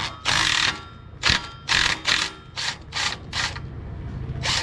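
Socket ratchet clicking in a run of short back-and-forth strokes, loosening the bolts that hold the catalytic converter on a motorcycle's exhaust.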